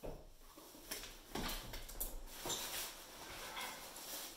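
Gear being packed into a nylon backpack: fabric rustling and scraping, with a few short knocks in the first three seconds.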